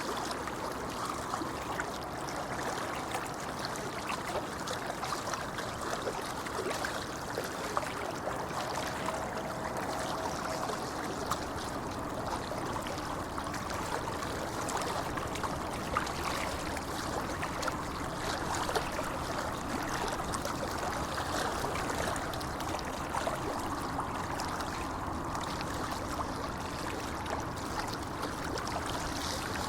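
A shallow river babbling steadily over stones: a continuous, even rush of running water.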